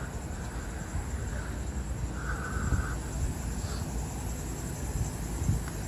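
Steady low rumble of engines and road traffic, with a short faint tone a little over two seconds in.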